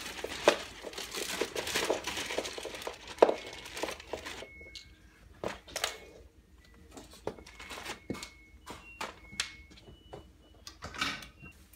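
Rustling and crinkling handling noise for about the first four seconds, dense with small clicks. Then it goes quieter, with scattered light clicks and knocks and a few faint, short high tones.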